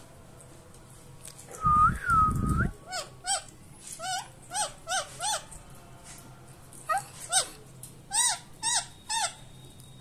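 Rose-ringed (Indian ringneck) parakeet calling: one louder drawn-out call about two seconds in, with a low rumble under it, then a run of about a dozen short chirps, each quickly rising and falling in pitch.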